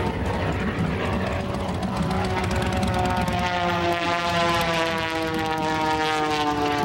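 Pitts S-2S aerobatic biplane's six-cylinder Lycoming engine and propeller running at full power, the pitch sliding steadily down over the last few seconds.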